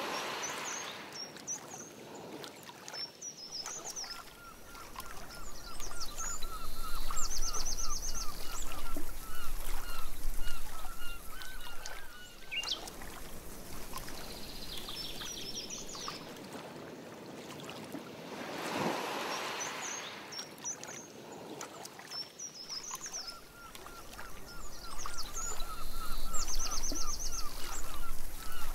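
Birds calling around a lake: one repeats long series of short, even notes while others give higher chirps and quick trills. A broad swish near the start and again about two-thirds through fits a canoe paddle stroke in the water.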